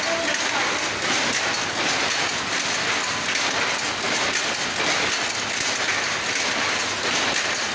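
Loom machinery clattering steadily: a dense, even rattle of many fine rapid clicks with no breaks.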